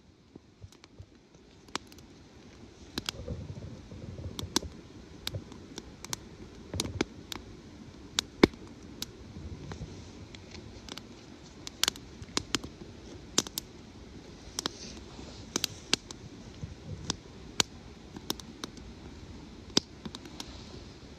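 Small wood fire of split kindling and logs crackling, with irregular sharp pops about one or two a second, a few of them much louder.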